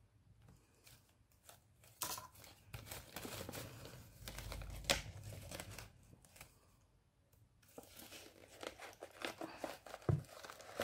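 Clear plastic packaging crinkling and rustling, with small clicks, as a pack of foam stickers is rummaged through and handled, in two spells with a short lull between.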